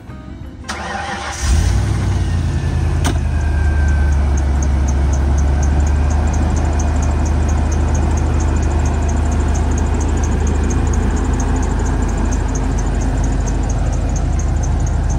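1998 Saleen XP8's 5.0-litre V8 starting about a second and a half in, then idling steadily with a deep rumble. A fast, even high ticking runs over the idle.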